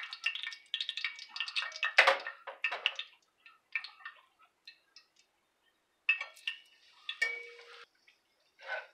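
Indian fry bread dough frying in hot oil in a cast-iron skillet, the oil sizzling and popping in quick crackles that thin out after about three seconds. Metal utensils knock against the pan, loudest about two seconds in, with a clink that rings briefly about seven seconds in.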